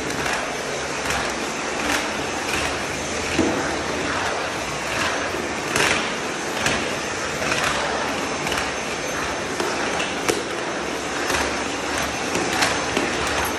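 Vacuum cleaner running with a steady rushing hiss while its floor head is swept back and forth over ceramic tile, scraping at each stroke about every three quarters of a second.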